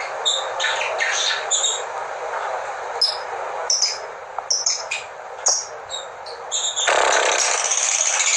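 Lovebirds calling: short, sharp chirps scattered over a steady hiss, then about seven seconds in a loud, unbroken chattering song sets in.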